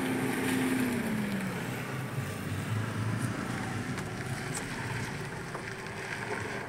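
Suzuki Swift hatchback's engine running as the car drives slowly past and pulls over. The engine note drops in pitch about a second in as it slows.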